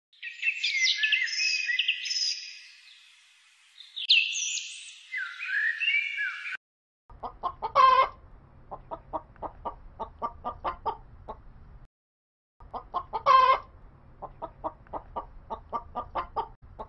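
A small bird chirping in quick high-pitched phrases, then a hen clucking: a run of short clucks with one louder drawn-out call near its start, heard twice.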